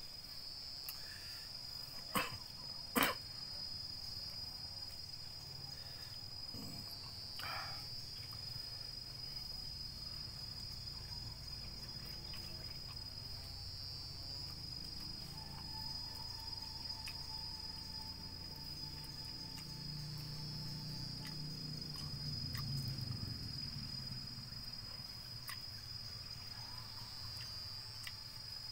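Steady, high-pitched insect chorus that swells every six or seven seconds, with two sharp clicks about two and three seconds in.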